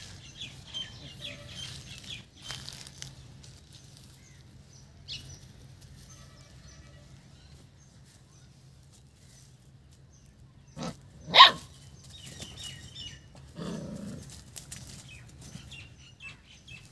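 Puppy barking: one short, sharp bark about eleven seconds in, just after a smaller, softer one. Faint high squeaks come and go over a steady low hum.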